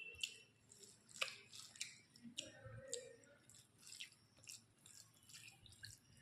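Close-miked eating: soft wet chewing with a string of sharp mouth clicks and smacks every half second or so, the sharpest about a second in.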